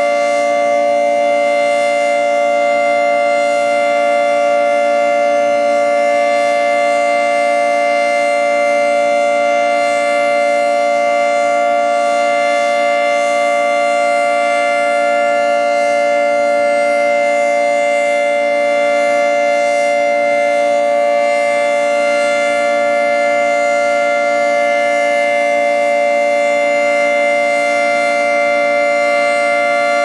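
Federal Signal 2T22A dual-tone outdoor warning siren sounding its Alert signal: a loud, steady two-tone chord held at one pitch, neither rising nor falling.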